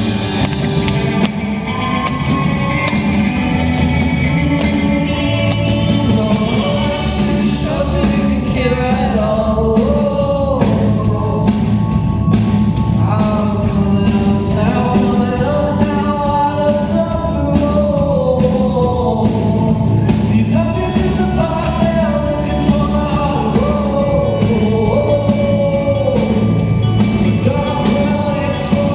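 A live pop-rock song: a singer's voice carries the melody over a full band with a steady drum beat.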